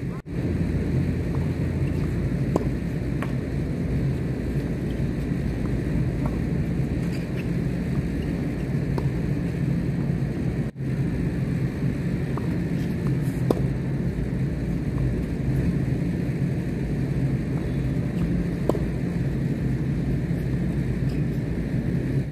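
A steady low rumble with a faint sharp pop here and there: tennis balls struck by racquets during a doubles rally.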